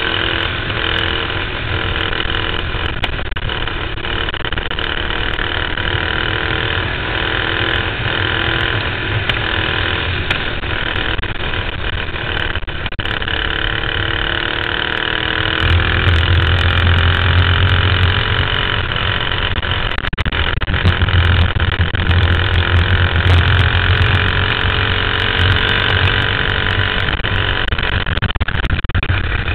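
Dirt-track cage kart's engine running at racing speed, heard from a camera mounted on the kart, its pitch sagging and climbing again as it goes through the turns, over a steady low rumble and rattle from the chassis.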